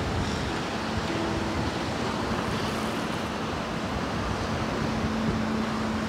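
Steady wind and sea-surf noise, with a few faint low handpan notes ringing on beneath it: one starts about a second in, a higher one sounds briefly soon after, and the low one returns near the end.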